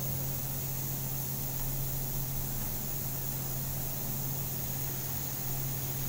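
Steady low hum with an even hiss and no distinct events.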